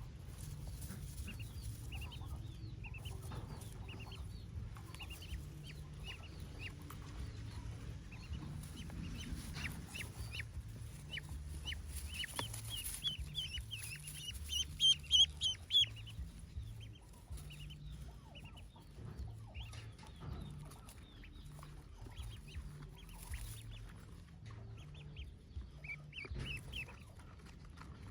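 Newly hatched ducklings peeping: many short, high chirps, with a louder cluster of rapid peeps about halfway through.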